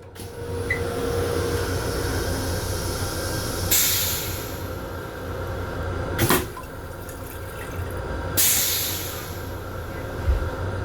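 M7 commuter railcar running, a steady low rumble heard from inside the car's restroom, with two hissing bursts of a couple of seconds each and a sharp click or knock twice.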